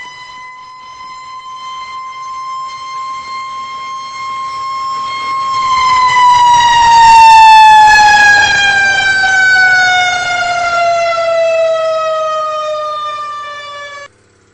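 Fire engine siren holding one steady tone that grows louder as the truck passes, with a low rumble under it, then falls steadily in pitch and cuts off suddenly near the end.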